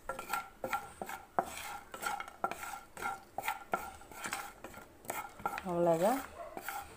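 A spatula stirring dry-roasted cashews, almonds, pistachios and cardamom with dried ginger powder in a nonstick kadai: quick, irregular scrapes and light taps against the pan. A brief voice sound comes about six seconds in.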